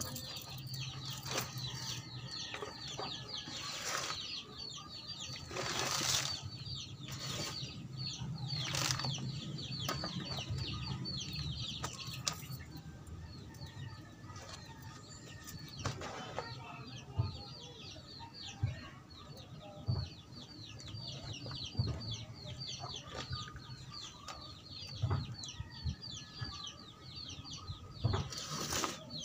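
A steel shovel scooping and scraping potting soil on a plastic tarp, with soil tipped into a plastic pot near the end. Chickens cluck and small birds chirp steadily in the background.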